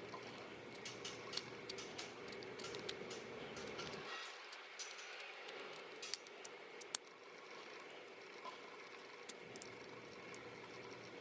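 Faint, scattered light clicks and taps of small tools and parts being handled while a compact digital camera is taken apart, thicker in the first half, over a steady faint hum.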